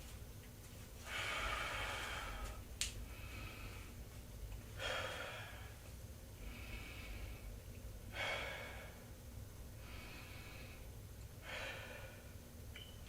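A person breathing hard: slow, noisy breaths in and out, a stronger breath about every three seconds alternating with a softer one. A sharp click comes about three seconds in.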